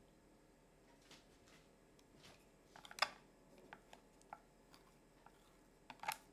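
Wooden chopsticks stirring liquid cream in a glass mixing bowl: faint swishing with light clicks of the sticks against the glass. The sharpest click comes about three seconds in, and a few more come near the end.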